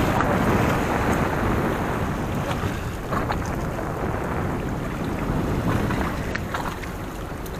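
Steady rushing noise of wind and sea aboard a fishing boat, with a few faint knocks.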